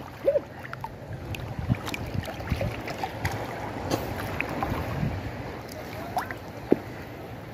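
Sea water lapping and sloshing around people wading chest-deep, with small splashes and wind on the microphone.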